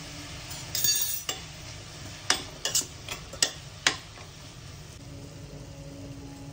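A metal spatula stirring vegetables in a pressure cooker pan: a short scrape about a second in, then about six sharp clinks of the spatula knocking against the pot, over a steady low hum.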